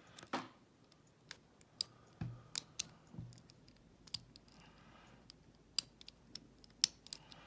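Irregular sharp metallic clicks of a lock pick and tension wrench working the pins in the keyway of an ASSA Ruko2 padlock's six-pin core. There are a couple of soft thumps about two and three seconds in.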